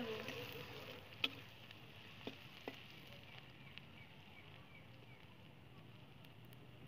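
Sliced onions sizzling faintly in mustard oil in a steel kadai, frying toward brown. There is one sharp metal tap of the spatula on the pan about a second in, and two lighter taps soon after.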